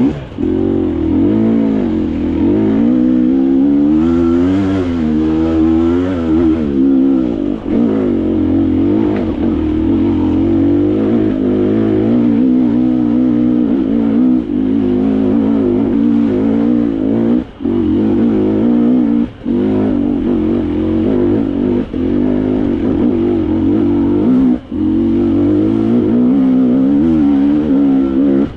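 Dirt bike engine under way on an off-road trail, its pitch rising and falling continuously as the throttle is worked, with three brief drops where the throttle is shut for a moment.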